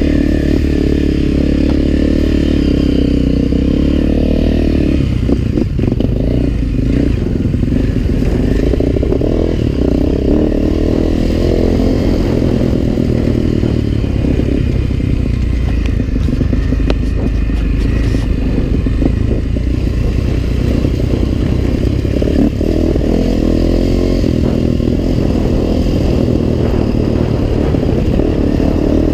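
Dirt bike engine running steadily on the trail, its revs shifting up and down, with scattered knocks and rattles from the bike over rough ground.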